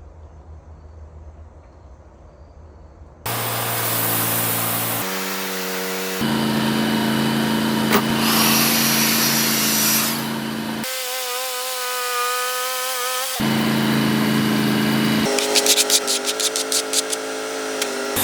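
Wood-Mizer LT40 band sawmill running and sawing a black walnut log, in several short stretches that change abruptly, each with a different steady machine tone. The first three seconds hold a quieter low hum, and a quick run of ticks comes a couple of seconds before the end.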